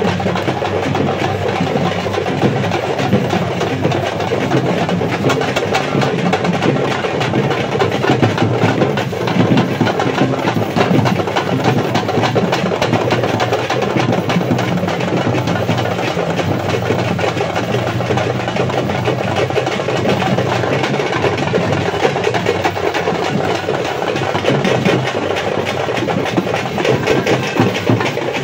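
A street procession band of many double-headed drums beaten fast and continuously with sticks, a dense unbroken din of strikes mixed with the noise of a large crowd.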